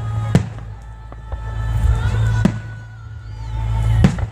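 Fireworks shells bursting overhead: three sharp booms about two seconds apart over a continuous low rumble.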